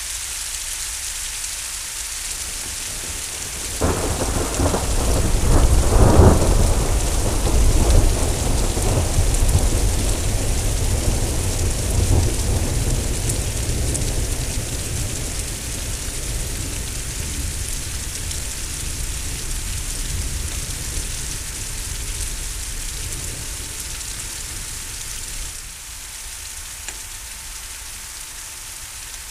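Thunderstorm: steady rain hissing, then about four seconds in a loud thunderclap breaks out and rolls on as a deep rumble, loudest over the next few seconds and slowly dying away. Near the end the rain hiss drops a little.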